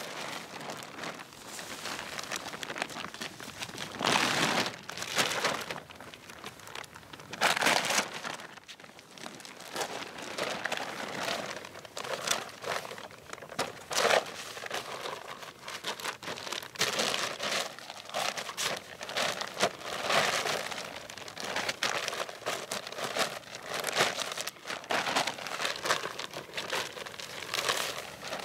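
A large ground sheet being shaken out and folded by hand: continuous crinkling and rustling of the sheet, with a few louder rustles as it is swung and doubled over.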